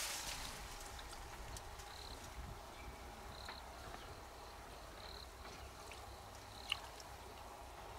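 Faint outdoor ambience by water: short high chirps about every second and a half, a few soft clicks, and one sharper click near the end.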